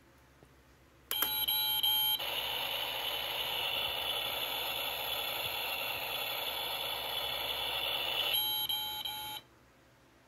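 Toy play kitchen oven's electronic sound effect from a small speaker: about a second of beeping tones, then a steady hiss for about six seconds, then beeping tones again before it cuts off abruptly.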